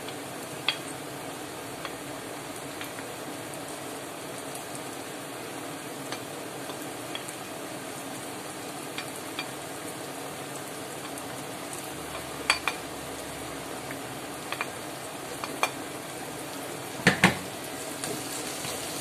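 Onion, garlic and mushrooms frying with a steady sizzle in a non-stick frying pan as flaked tuna is added and stirred in. A scatter of short clicks and knocks from the utensils on the plate and pan, the loudest pair near the end.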